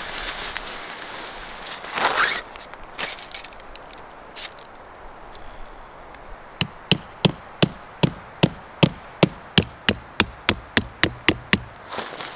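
A camping hammer driving a metal tent stake into the forest floor: about twenty sharp, ringing metal-on-metal strikes, getting quicker toward the end. Before them come a rustle and a few light clinks.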